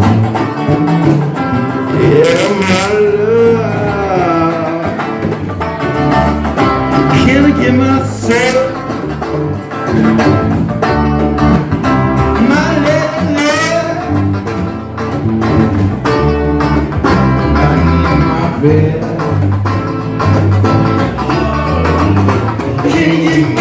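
Live band playing a song: electric guitar and a low bass line, with a singer whose voice slides between notes.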